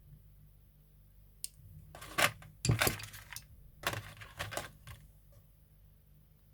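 Small hard objects clicking and clattering on a hard surface: one sharp click about a second and a half in, then two spells of rattling clatter over the next three seconds.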